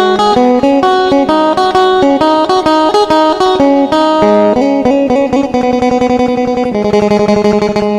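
Instrumental music: a plucked string instrument playing a quick melody of short notes over a steady low drone note.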